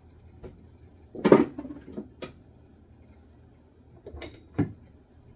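Condiment bottles being handled and set down on fridge shelves: a loud clunk about a second in, a couple of sharper clicks after it, and two more knocks near the end.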